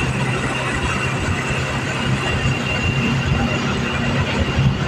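Motorcycle-sidecar tricycle's small engine running on the move, with road and wind noise and a steady high-pitched whine over it.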